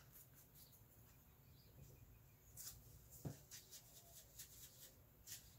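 Near silence with faint, scratchy strokes of a wide paintbrush working acrylic paint, on canvas and on a paper-plate palette while it is reloaded, and one soft knock a little over three seconds in.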